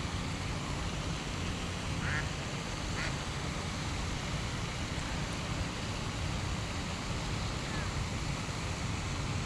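Steady rush of water from the pond's spray fountains, with a few short calls from waterfowl about two and three seconds in.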